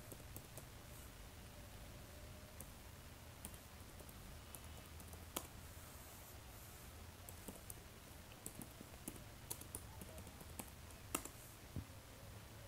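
Faint, sparse typing on a computer keyboard, scattered key clicks with two louder key strikes, one about halfway through and one near the end, over a faint low hum.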